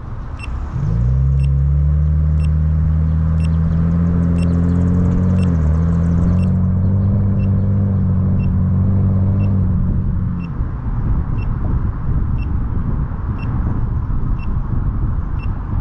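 Car warning chime beeping about once a second, over a loud, steady, low engine drone that sets in about a second in and stops about ten seconds in.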